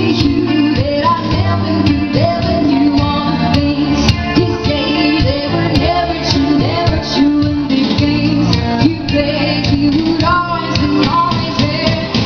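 Live pop band: two women singing into handheld microphones over electric guitar, bass and a steady beat.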